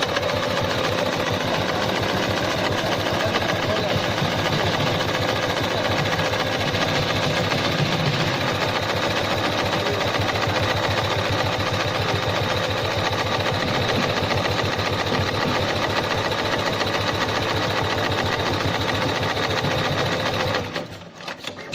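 LS273-2010 heavy-duty computerized pattern sewing machine stitching steadily, its needle strokes coming in rapid even succession. It stops near the end.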